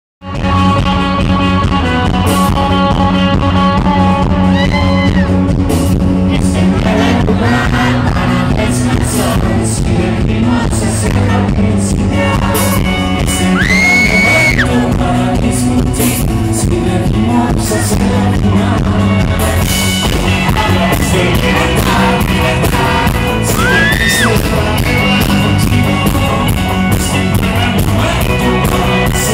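Live rock band playing, with electric guitar, bass guitar and drums under a male lead singer's voice.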